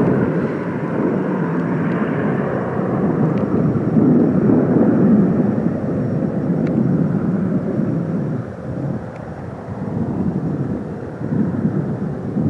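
Canadair CL-215 water bomber flying overhead just after takeoff: the steady drone of its two Pratt & Whitney R-2800 radial piston engines and propellers. It drops a little about two-thirds of the way through, then swells again.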